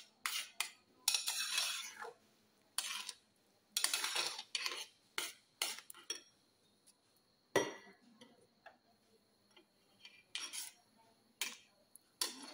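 A stainless-steel spoon stirring thick ragi soup in a metal pot, scraping and clinking against the pot in irregular strokes. The strokes come thick and fast at first, there is one sharp knock a little past halfway, and after that they come sparser.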